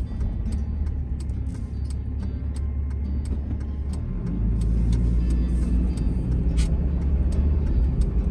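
Car cabin: engine and tyre rumble as the car pulls away from a stop and turns right, growing louder about four seconds in as it gathers speed, with light clicks through the first half.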